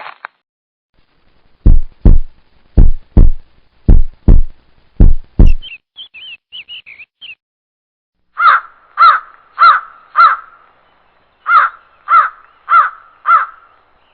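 Four pairs of deep, heavy thumps, then a few brief high bird chirps, then a crow cawing eight times in two runs of four.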